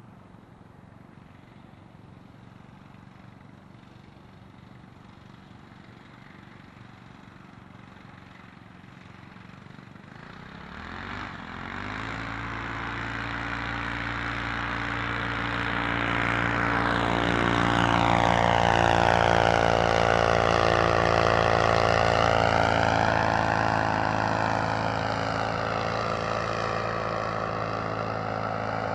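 Homemade paramotor's single-cylinder four-stroke engine, breathing through a chambered aluminium muffler. It idles faintly, then about ten seconds in it is throttled up for takeoff, its pitch rising into a steady full-power run. It grows louder toward the middle and eases off a little near the end.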